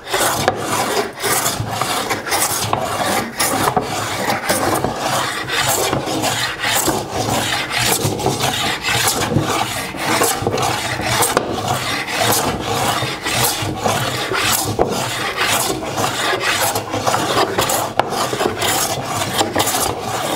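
Joiner's plane taking repeated full-length strokes along a board's face, a rasping hiss of shavings at about two strokes a second, checking that it cuts shavings the whole length of the board.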